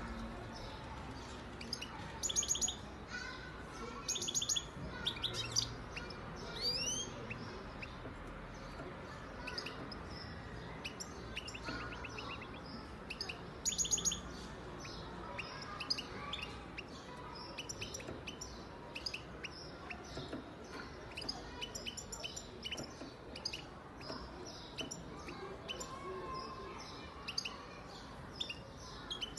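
Caged European goldfinch singing: bursts of fast, high trills and twittering notes, with a rising whistled note about seven seconds in and scattered short chirps between phrases.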